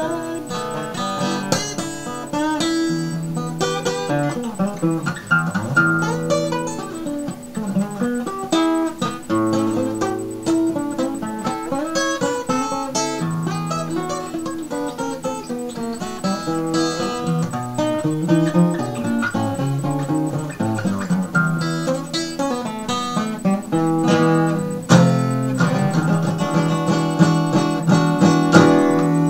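Acoustic guitar played solo in a blues style, picked notes and chords running on without singing. About four seconds before the end a hard strum comes in, and the playing is louder after it.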